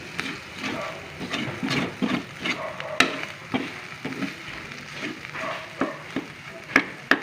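Corned beef frying in butter in a pan, stirred with a utensil that scrapes and clicks against the pan at irregular moments.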